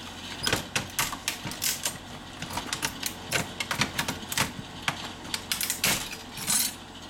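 Channel-lock pliers gripping and wrenching an aluminum heat sink loose from a CRT TV's circuit board: a fast, irregular run of sharp metallic clicks and snaps.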